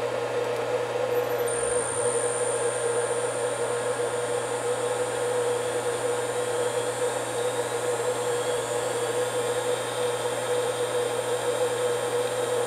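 Electric CNC spindle driven by a Huanyang VFD spinning up toward 10,000 RPM: a thin, high, steady whine starts about a second and a half in. Under it runs a steady machine hum.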